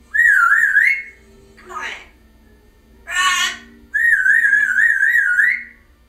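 African grey parrot whistling: two wavering, warbling whistles, a short one at the start and a longer one of about a second and a half near the end, with two brief voice-like calls between them.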